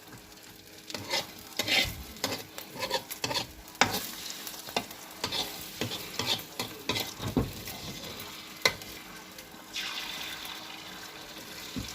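A utensil clicking and scraping against a pan as eggs are stirred. A steady frying sizzle comes in near the end.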